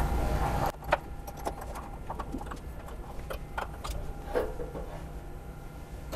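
Scattered light metallic clicks and knocks as a steel hold-down clamp, its T-slot nut and clamping screw are fitted onto the slotted aluminium bed of a CNC milling machine.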